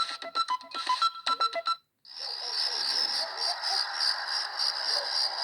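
Samsung SGH-E600 mobile phone ringtones: a melody of short, clipped electronic notes ends a little under two seconds in. After a brief silence another ringtone begins, a rapid, even run of high pulses over a hiss.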